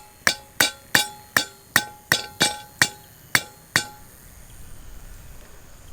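A metal campfire grill being tapped down into the ground to level it: about ten sharp metal strikes, roughly three a second, each with a brief clinking ring. They stop a little under four seconds in.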